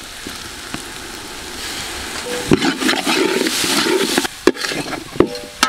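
Chopped tomatoes frying in hot oil with shallots, chillies, ginger and garlic in a large aluminium pot: a loud sizzle that swells about two seconds in as they are stirred. A ladle knocks and scrapes against the pot several times.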